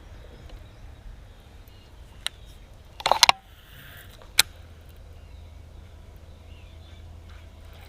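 A short clatter of hard knocks about three seconds in, with single sharp clicks just before and about a second after, over a steady low hum: gear being handled on a fishing boat.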